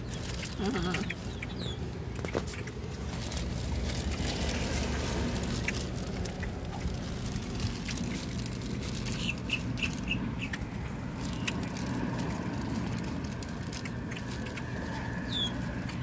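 Grackles giving short high chirping calls: one about two seconds in, a quick run of them about nine to ten seconds in, and another near the end, over a steady low hum.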